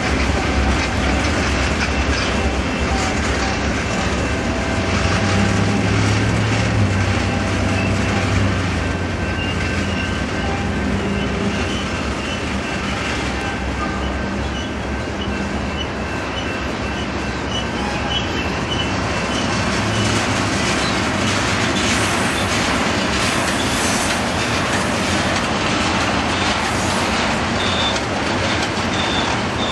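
Freight cars of a slowly decelerating train rolling past, steel wheels clacking over the rail joints, with short high-pitched wheel squeals coming and going, most in the middle and near the end.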